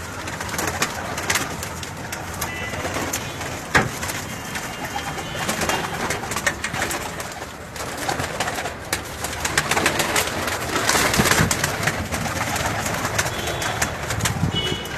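Domestic pigeons cooing in a loft, with frequent sharp clicks and rustling and a few short, high chirps.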